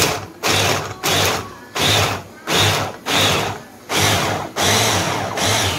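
SEMP electric hand blender with its chopper-bowl attachment, switched on in short pulses to mince onion: about nine bursts of under a second each, with brief gaps between them.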